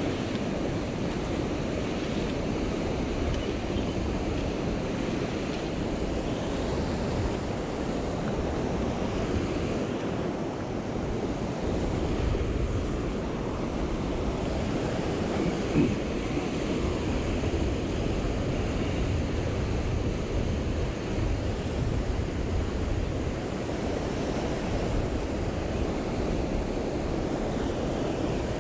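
Steady rush of river water pouring over rapids, with wind buffeting the microphone. One short knock about halfway through.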